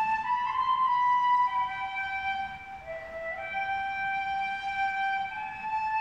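Flute-like whistling tones from a closed door, each note held for about a second before stepping up or down in pitch, like a slow wandering tune, with one short upward slide near the middle.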